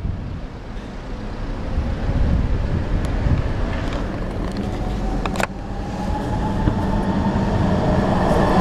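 Street traffic rumble heard from inside a moving car. Over the last few seconds a tram's electric traction motors give a slowly rising whine as it accelerates. A single sharp click comes about five seconds in.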